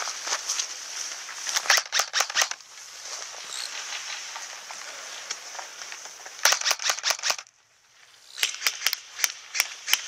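Airsoft M16-type rifle firing on semi-automatic: three quick strings of sharp, snapping shots, about two seconds in, about six and a half seconds in, and near the end.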